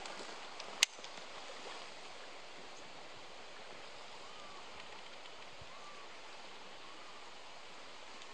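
Steady hiss of running water, with one sharp click about a second in and a few faint short chirps later on.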